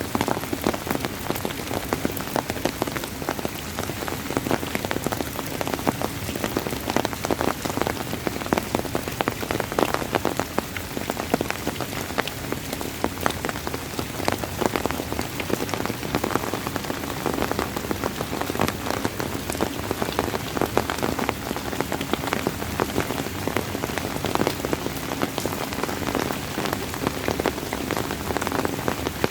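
Steady rain falling, with dense close drop patter on a surface.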